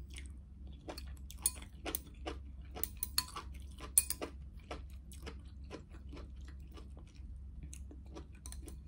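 Close-miked wet chewing and mouth smacking of soft noodles, okra and mushrooms, with metal chopsticks clicking against a glass bowl as they stir the soup; the sharpest clinks come about one and a half, three and four seconds in. A steady low hum runs underneath.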